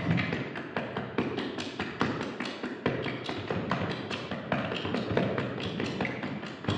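Rapid, uneven tapping, several light knocks a second, over a low murmur.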